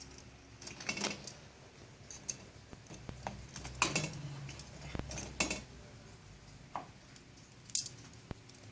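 A metal cooking utensil clinking and scraping against a frying pan, in a handful of scattered strokes over a low steady background.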